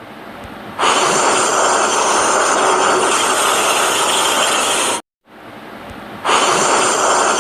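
Steam locomotive sound effect of steam being let off: a soft hiss that jumps to a loud steady hiss after about a second, cuts off suddenly after about five seconds, then starts over the same way.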